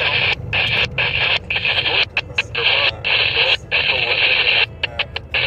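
NOAA Weather Radio broadcast coming through a receiver: a synthesized voice reading a warning, under a steady hiss of radio static.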